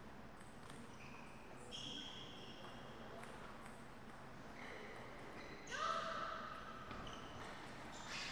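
Table tennis between points: short high squeaks of players' shoes on the sports floor and light bounces of a table tennis ball, the loudest squeak about six seconds in.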